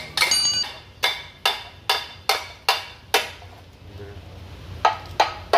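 Hammer blows on a steel socket-and-bar driver seated on a suspension control-arm bushing, about two to three a second, driving the bushing. The first blow rings with a metallic ring; the blows pause about three seconds in, then start again.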